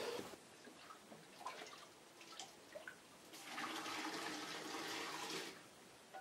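Home-brewed beer poured from a bucket into a keg: a steady splashing pour lasting about two seconds, starting about three seconds in. Before it, only faint scattered drips and clicks.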